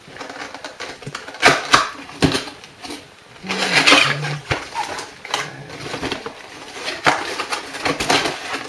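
Cardboard box with a clear plastic window being handled and opened: irregular rustling, scraping and crinkling of the packaging with short knocks, loudest about one and a half seconds in and again around four seconds in.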